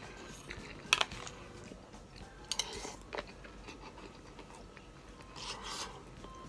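Metal spoon scraping and clinking against a bowl while scooping up hayashi rice, with a few sharp clicks about a second in and again around two and a half to three seconds, plus mouth sounds of eating.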